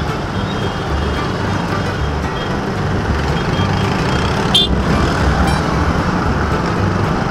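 Steady road and traffic noise heard from a moving motorcycle in dense city traffic, with a bluegrass background track's bass line running underneath. A brief high beep cuts through about four and a half seconds in.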